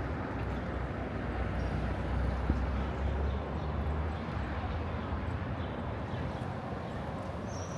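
Old-town street ambience: a steady low rumble that swells about two to four seconds in, under a general background hum.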